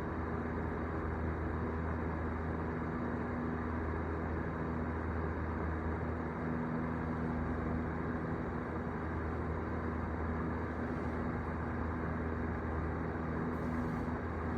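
Steady mechanical drone with a low hum and a faint steady tone, unchanging throughout.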